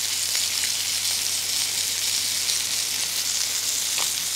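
Seasoned fish fillets sizzling in butter in a hot pan as they are blackened over high heat: a steady frying hiss.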